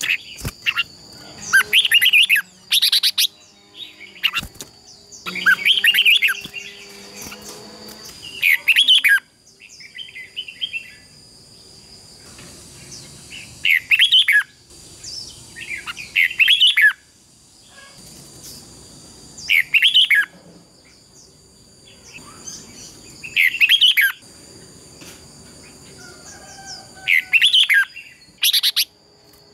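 Red-whiskered bulbul singing: short, loud, warbled song phrases repeated every two to three seconds, in the bird's competitive fighting song. A thin steady high tone runs underneath.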